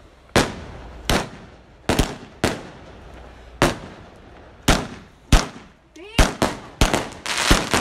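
Backyard fireworks going off: a dozen or more sharp bangs at irregular intervals, coming faster after about six seconds and running into a dense crackle near the end.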